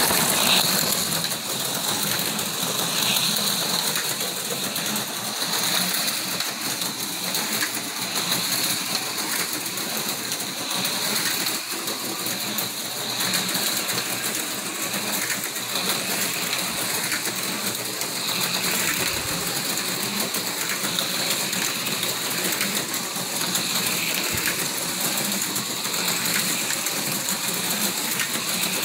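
Four HO-scale slot cars lapping a plastic oval track at about half throttle: the steady high whine of their small electric motors with the light rattle of the cars running in the slots.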